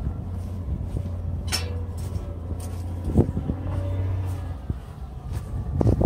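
Low, steady engine rumble of a motor vehicle, fading away about four and a half seconds in, with a sharp click about one and a half seconds in.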